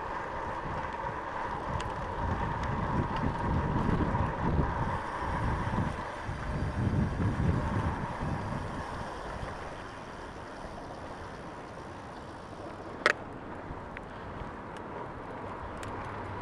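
Wind buffeting the microphone while a bicycle rolls along, louder in the first half and easing off after about ten seconds, with a faint steady tone underneath. One sharp click comes near the end.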